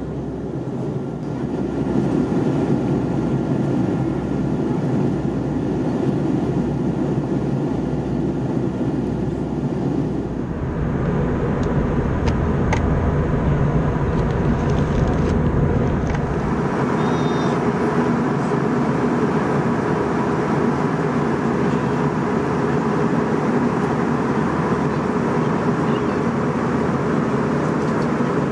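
Steady cabin noise of an Airbus A321 airliner in flight: a continuous roar of jet engines and airflow. The sound gets brighter about ten seconds in, and a few light clicks follow shortly after.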